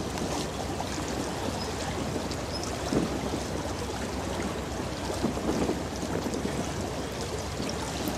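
Rushing, splashing water of a container ship's bow wave breaking past, over a steady low rumble.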